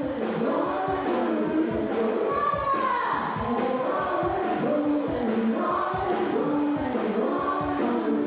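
Live band music: several women singing together over a steady drum beat.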